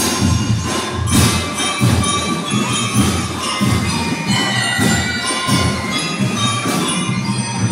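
School drum and lyre corps playing live: drums beating under the bright ringing melody of bell lyres.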